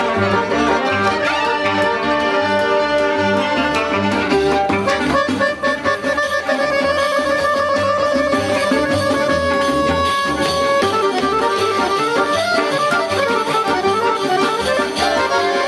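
Klezmer band playing live: fiddle and clarinet carry the tune over a steady low beat.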